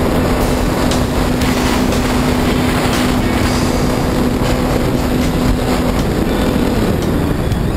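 Electric motor and propeller of a Multiplex FunCub model plane running steadily in flight, heard from a camera mounted on the plane, with wind rushing over the microphone. The steady hum of the motor breaks off near the end.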